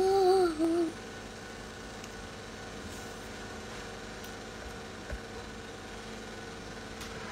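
A woman's sung note fades out about a second in. After that there is only a steady low background hum.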